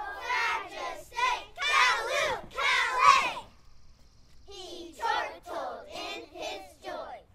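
A group of young children singing together, with a short break about halfway through before they carry on.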